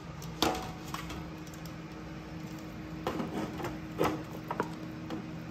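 A few short knocks and clinks of a utensil against a bowl and baking pan as the soaked bread and apple pudding mixture is transferred into the pan, over a steady low hum.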